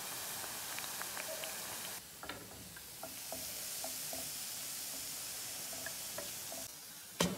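Masala vadai deep-frying in hot groundnut oil: a steady sizzle with scattered small pops and crackles as they are lifted on a slotted steel ladle. One sharp clink comes near the end.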